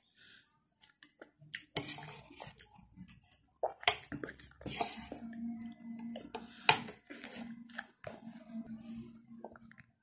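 Close-up wet chewing and lip smacking of a person eating spoonfuls of rice and food, with irregular short clicks and a low steady hum in the second half.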